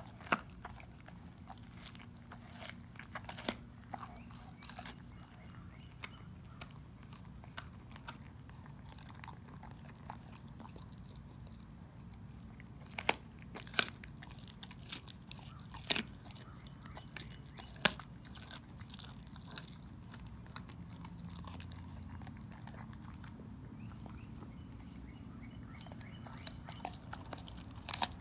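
A dog chewing and gnawing on raw pork ribs, with irregular sharp crunches as its teeth crack through the rib bones, which are not that hard.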